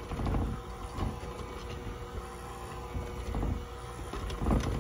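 Electric hand mixer running at low speed, its beaters churning a dry, crumbly brownie-mix crust in a mixing bowl: a steady motor hum with uneven swells as the beaters work through the mixture.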